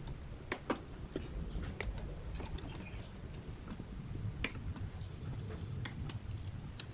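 Irregular sharp clicks and light metallic taps from pliers handling wires and connectors inside an open amplifier's metal chassis.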